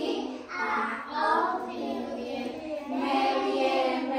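A group of small children singing a song together.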